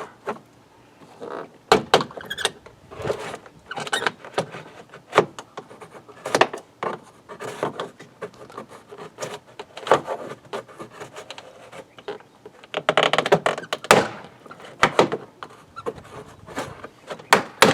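Plastic trim tool prying an interior door panel off a GMT400 Chevy pickup door, the panel's plastic retaining clips popping loose. Scattered sharp clicks, knocks and creaks, busiest about 13 seconds in.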